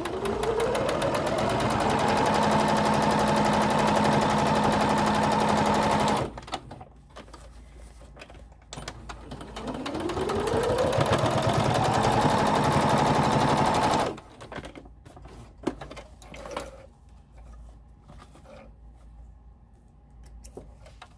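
Electric sewing machine top-stitching cotton fabric in two runs of several seconds each: each time the motor whine rises as it speeds up, holds at a steady fast stitch, then stops abruptly. After the second run, faint clicks and rustles as the fabric is handled and the threads pulled out.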